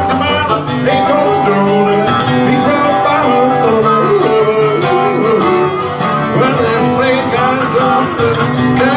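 A country blues played on acoustic guitar and harmonica, with a man singing.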